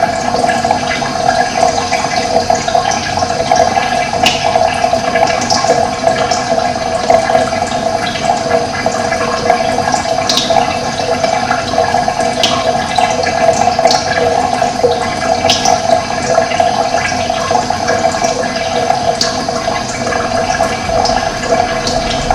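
Steady rush of running water, even and unbroken, with short high bird chirps now and then.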